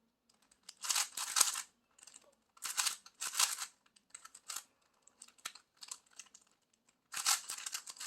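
3x3 Rubik's Cube being turned by hand: its plastic layers clicking and clattering in quick bursts of several turns, with short pauses between.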